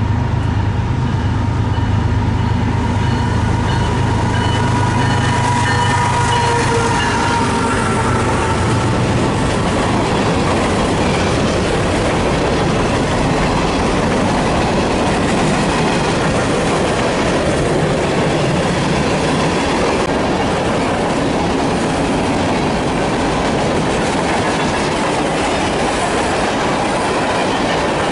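A train passing at track side. For about the first nine seconds a locomotive's diesel drone sounds, its pitch falling slightly as it goes by. Then comes the steady rumble and clickety-clack of cars rolling past.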